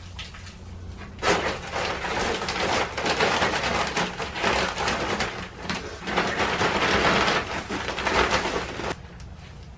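Fine hardwood bedding pouring from its bag onto a concrete floor in a steady stream. It starts about a second in and cuts off abruptly near the end.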